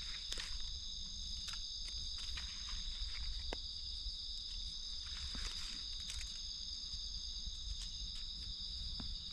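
Steady, high-pitched insect chorus, with a few soft clicks and rustles from a knife cutting mushrooms out of leaf litter.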